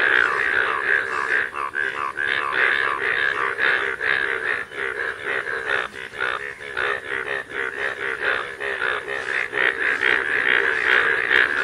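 A dense chorus of frogs calling, Indian bullfrogs among them: rapid, overlapping croaks pulsing many times a second without a break.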